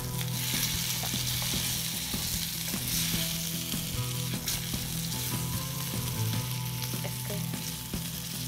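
Skewered chicken kebabs shallow-frying in a little oil in a pan, sizzling steadily, with light scrapes and taps of a utensil as they are turned.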